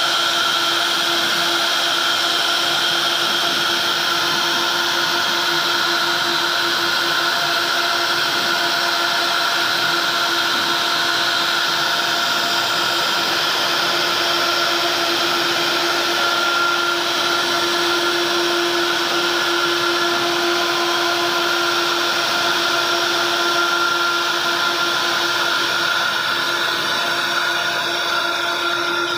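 CNC router spindles running at high speed with their bits carving a wooden door panel: a steady whine made of several held pitches over the hiss of the cutting. The sound thins slightly near the end.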